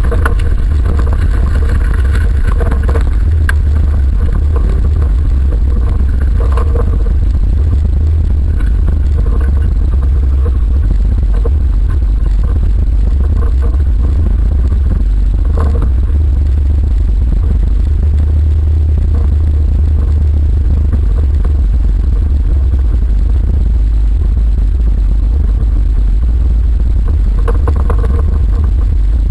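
In-cabin sound of a stripped autocross car driving on a dirt track: a steady low rumble of engine and road, with a few brief rattles and clatters from the car's body.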